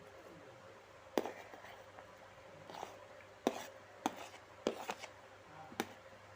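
Kitchen knife chopping on a cutting board: about six sharp chops at uneven intervals.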